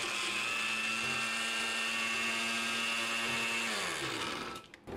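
Small electric food processor grinding crayfish, its motor running at a steady high whine. About three and a half seconds in it is switched off, and the whine falls in pitch as the blades spin down.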